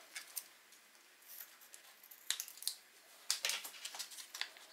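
Scissors snipping open a small plastic icing sachet, a few short sharp clicks, then the packet crinkling in the hands, loudest about three and a half seconds in.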